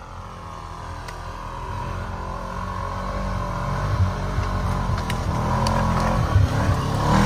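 Off-road side-by-side engine running, getting steadily louder.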